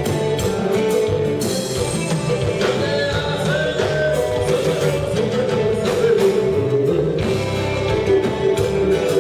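Live Haitian konpa band playing: electric bass, guitar, keyboards and drums, with a male singer singing over them.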